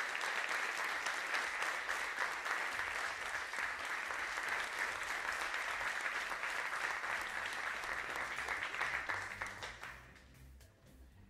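Audience applauding steadily, the clapping falling away about ten seconds in. Low music begins quietly underneath in the second half.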